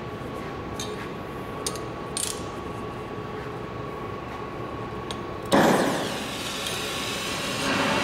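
Gas welding torch lighting with a sudden whoomp about five and a half seconds in, then the flame hissing steadily and growing louder near the end.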